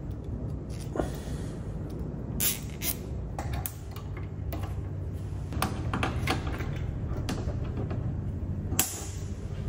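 Brake pipes being clipped back onto a front coilover strut by hand: scattered small clicks and taps of the metal clips and lines, about half a dozen, over a steady low hum.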